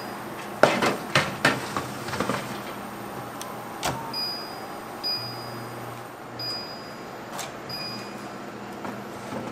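A metal tray of cacao beans clatters as it slides into a countertop oven, and the door shuts with a few sharp knocks. Then about four short, high beeps come from the oven's control panel as it is set.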